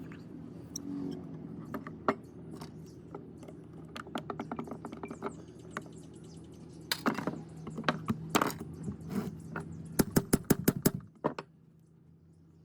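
Sharp clicks and knocks of small tools and metal parts being handled, with a quick run of about six loud taps near the end. A steady low hum runs underneath and stops about eleven seconds in.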